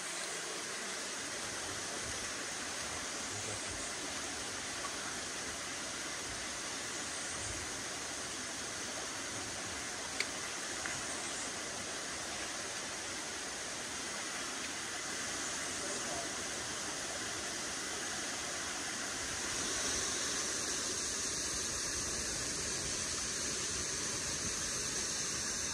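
Steady rushing wash of ocean surf, with a single sharp click about ten seconds in; the wash grows a little louder and hissier about twenty seconds in.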